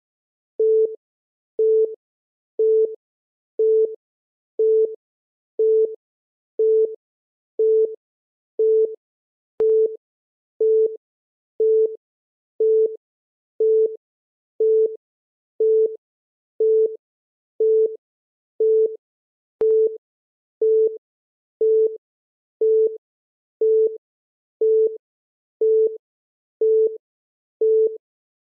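A countdown timer's short, low-pitched electronic beep, once every second as each second ticks off.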